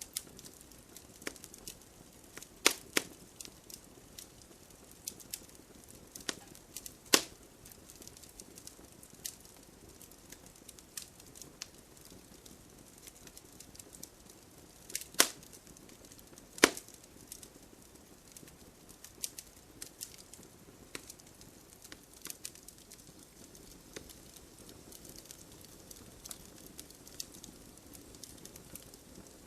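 Campfire logs burning, crackling with scattered sharp pops and a few louder snaps over a faint steady hiss.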